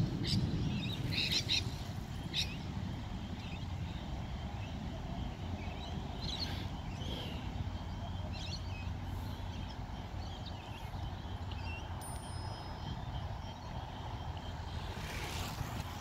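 Outdoor ambience: a steady low rumble with scattered small-bird chirps, most of them in the first couple of seconds and a few more near the middle.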